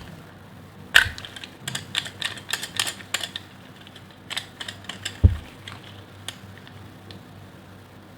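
Knife cutting through a bar of dry soap, making crisp, crunchy crackles in a quick run about a second in, then a few scattered crackles and one heavier, duller knock about halfway through.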